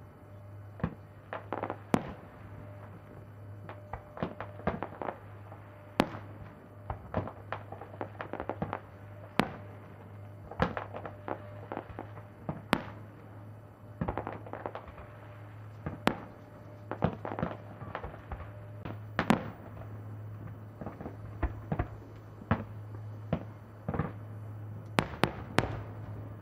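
Fireworks display: irregular bangs and crackles of shells bursting, some in quick clusters of several, with a steady low hum underneath.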